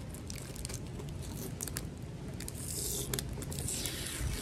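Clear plastic bag and newspaper wrapping rustling and crinkling as they are eased off a plant pot by hand, with a scatter of small clicks and a louder rustle about three seconds in.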